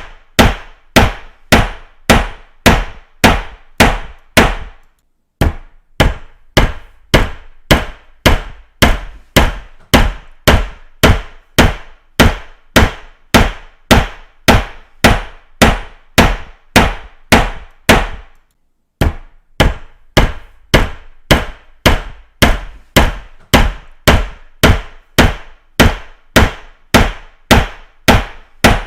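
Hammer striking repeatedly in an even rhythm, about two blows a second, with a short pause about five seconds in and another about two-thirds of the way through.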